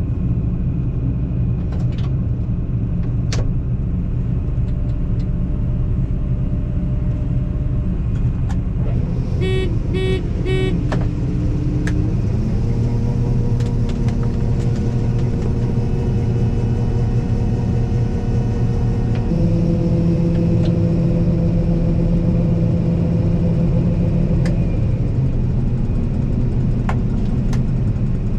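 Combine harvester running, a steady machine drone. About ten seconds in, four quick electronic beeps sound. The drone's pitch steps to a new level a little later, and changes again past the middle.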